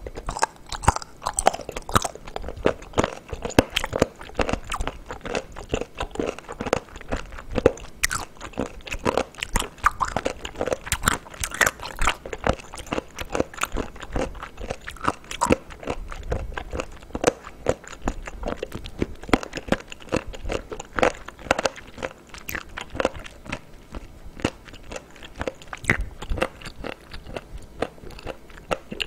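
Close-miked chewing of raw whole abalone sashimi: a dense run of quick, crisp clicks and crunches as the firm, chewy flesh is worked between the teeth.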